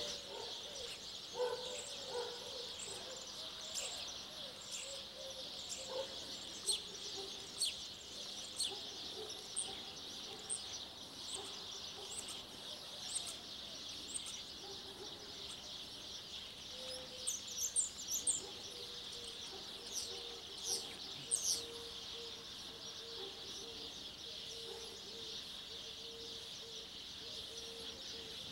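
Male spotless starling singing: a long string of short clicks and sharp, high whistles, with dense clusters of whistles about two-thirds of the way through.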